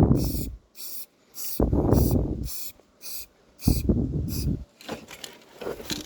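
Aerosol spray-paint can hissing in short bursts, about two a second at first and then more irregularly, as a graffiti tag is sprayed. Deep rumbling blasts break in every couple of seconds and are louder than the hiss.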